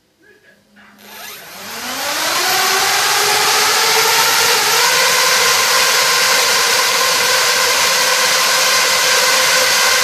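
Parrot Bebop quadcopter's electric motors and propellers spinning up about a second in, the whine rising in pitch and then holding steady at a loud, even pitch, with a small step up near the middle.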